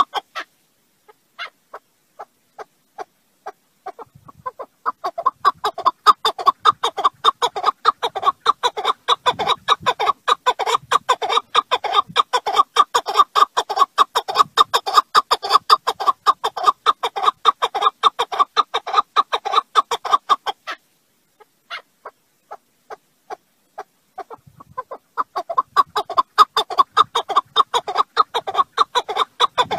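Alectoris partridge calling with fast, repeated clucking notes. A few separate notes come first. Then a long unbroken run of several notes a second breaks off about two-thirds of the way through, a few scattered notes follow, and a second fast run starts near the end.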